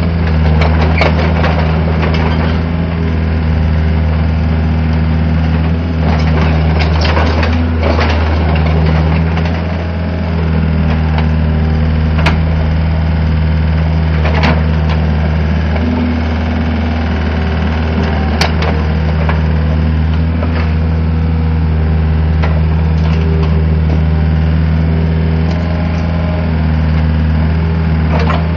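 Volvo EC55 compact excavator's diesel engine running steadily while the boom, arm and bucket are worked, its note shifting a few times. Occasional sharp clanks sound over it.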